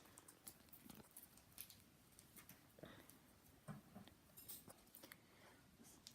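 Near silence, with faint scattered clicks and rustles of small handling noises.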